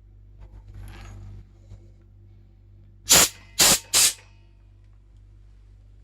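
Three short, loud blasts of compressed air hissing out, about half a second apart, over the steady low hum of a converted freezer compressor.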